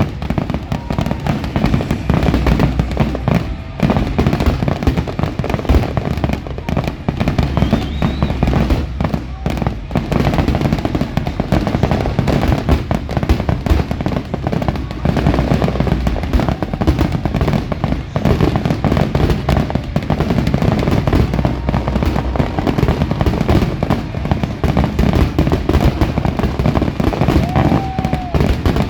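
Fireworks display: a dense, continuous barrage of aerial shell bursts, booms and crackling, with no pause.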